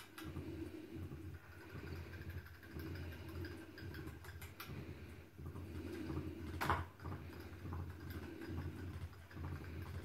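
Small electric motor of a Funny Butterfly cat toy running with a steady, slightly wavering hum, under scattered light clicks and one sharper knock about two-thirds of the way in.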